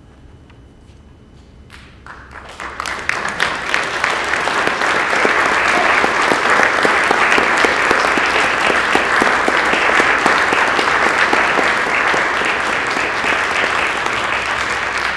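Audience applauding: after a quiet pause the clapping starts about two seconds in, builds quickly, and holds steady.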